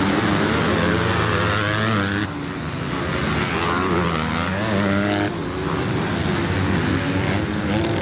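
Motocross dirt bike engines revving hard during a race, pitch rising and falling as the riders throttle through corners and shift. The sound changes abruptly about two and five seconds in.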